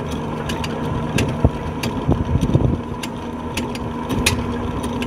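An anchor being winched up to the bow: a motor runs with a steady hum while sharp, irregular metallic clicks come from the chain.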